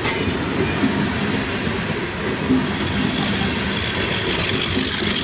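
Tractor-trailer trucks driving past on a highway: a steady rush of engine and tyre noise.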